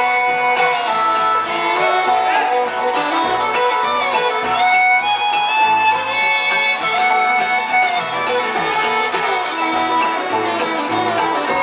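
Live acoustic bluegrass band playing an instrumental passage: fiddle to the fore over strummed acoustic guitar, banjo and mandolin.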